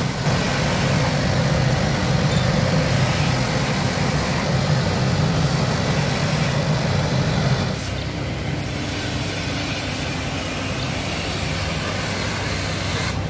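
Truck engines running steadily, with the hiss of hoses spraying disinfectant. About eight seconds in the sound changes abruptly to a slightly quieter steady engine noise.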